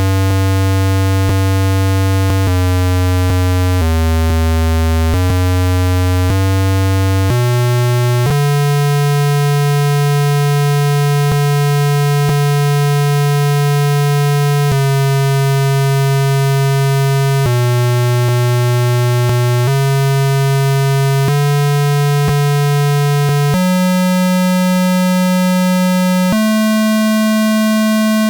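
Digi DOS virus payload noise: a loud, harsh, unbroken electronic buzz. It holds one pitch for one to several seconds, then jumps to another, stepping mostly upward and ending at its highest pitch.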